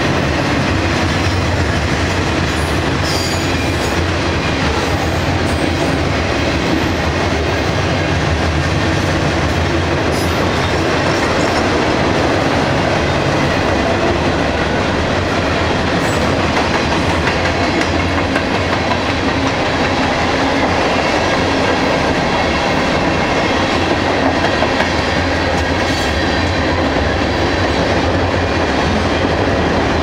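Freight train cars rolling past close by: a steady, loud noise of steel wheels running on the rails, with a few brief sharp sounds along the way.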